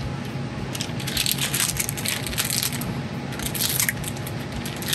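Foil hop-pellet bag crinkling in bursts as it is handled and hop pellets are poured from it, over a steady low hum.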